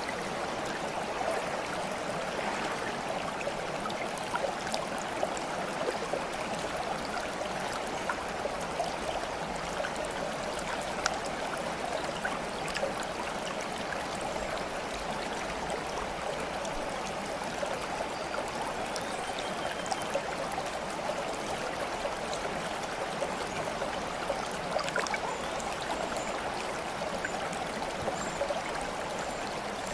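Running water babbling steadily like a small stream, with many small trickles and splashes.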